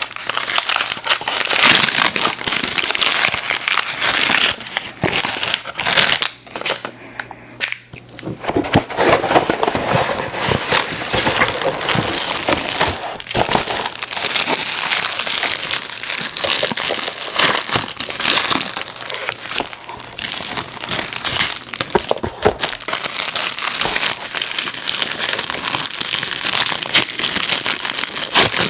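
Plastic candy wrappers crinkling and being crumpled close to the microphone, almost without pause, with a short lull about six to eight seconds in.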